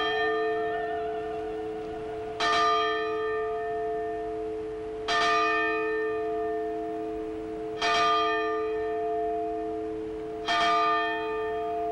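A bell tolling slowly during a moment of silent prayer: four strokes about two and three-quarter seconds apart, each ringing out and fading, with a low hum that carries on between strokes.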